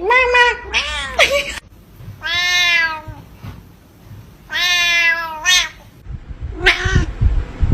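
A cat meowing: a few quick short meows, then two long drawn-out meows and a shorter one near the end, with some low knocks at the very end.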